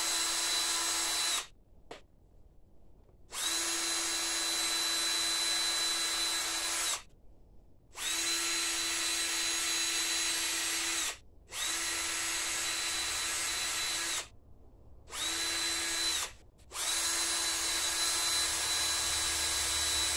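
Cordless drill spinning a wire-brush wheel in repeated bursts of a few seconds each, spinning up at each start, to scrub corrosion off battery terminal lugs and screws. It stops about a second in, runs again at about 3, 8 and 11 seconds, briefly around 15 seconds, and then runs steadily through the last few seconds.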